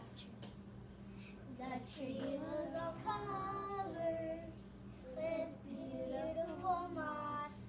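A single voice singing a slow tune without accompaniment. It starts about two seconds in, breaks briefly midway and stops near the end, over a steady low hum.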